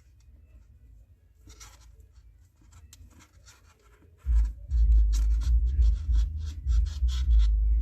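Paracord rubbing and rasping as the strand is pulled through a loop and a snake knot is tightened by hand, in quick scratchy strokes. It is faint at first, and from about four seconds in it turns much louder, over a low rumble of hands handling the cord close to the microphone.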